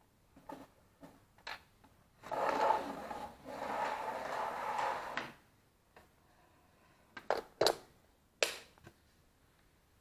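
A rubbing, scraping sound lasting about three seconds, then a few sharp clicks and knocks near the end.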